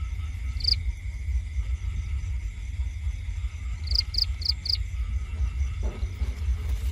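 Crickets trilling steadily at night, with a short high chirp about a second in and a quick run of four chirps near the middle. A constant low rumble sits underneath.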